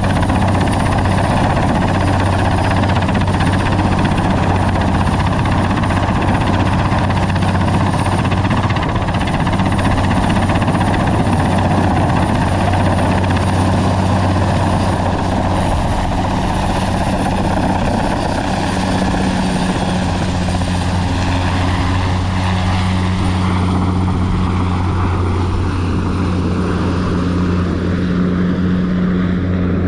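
Sikorsky S-58T helicopter hovering close overhead: a loud, steady beat of its main rotor over the running turbine engine. In the last few seconds the sound thins out as the helicopter moves off.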